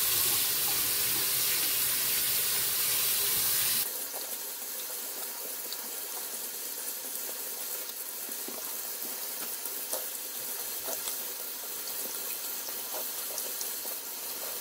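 Bathroom sink tap running, a steady rush of water. About four seconds in it abruptly turns softer, with small splashes as water is rinsed over the face.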